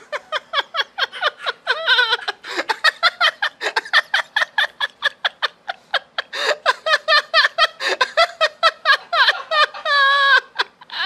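Hard, nonstop laughter: rapid pitched ha-ha pulses at about five a second, rising to a long, high held laughing cry near the end.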